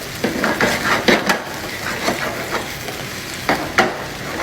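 Potatoes and sausage frying in a pan with a steady sizzle, stirred with a utensil that scrapes and knocks against the pan several times, mostly in the first second and a half and twice more about three and a half seconds in.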